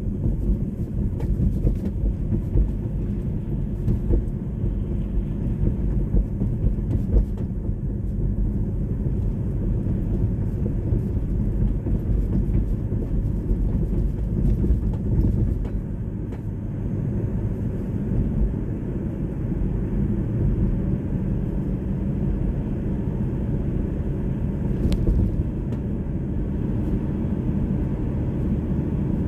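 A car driving: a steady low rumble of engine and road noise, with a few light clicks in the first several seconds.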